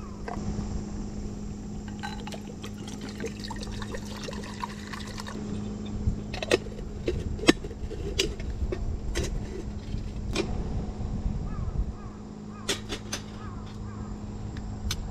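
Liquid pouring from a canteen into a small metal kettle, followed by a series of sharp metal clinks as the kettle's lid is fitted and its wire handle raised, the loudest about halfway through. A steady low hum runs underneath.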